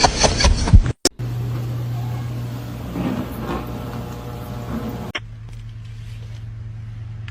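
A loud, busy stretch about a second long breaks off. It is followed by a steady low mechanical hum with faint scattered sounds over it.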